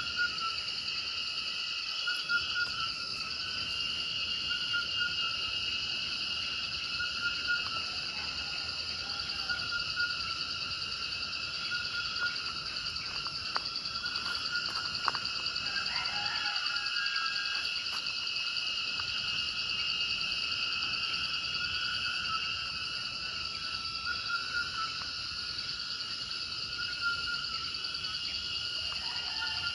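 Tropical night chorus of insects: a steady, layered high trill at several pitches, with a few short chirping calls about halfway through and again near the end.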